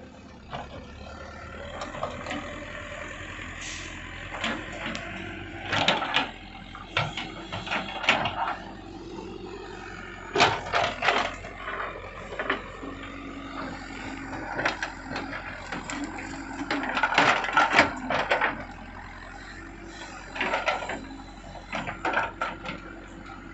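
Excavator at work: its diesel engine running steadily, with irregular bursts of clanking and scraping from the bucket and arm, the loudest about halfway through and again near three-quarters of the way.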